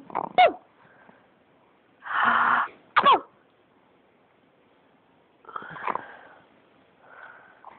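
A baby coughing, in breathy bursts about two seconds and six seconds in, with short high squeals that fall in pitch just after the start and about three seconds in.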